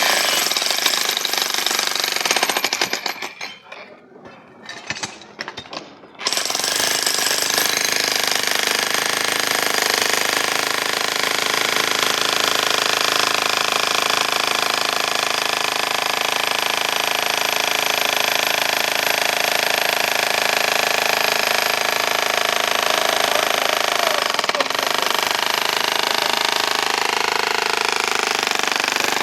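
A heavy demolition breaker hammering into a reinforced-concrete building pillar, running as a rapid, steady pounding. It stops for a few seconds early on and starts again about six seconds in.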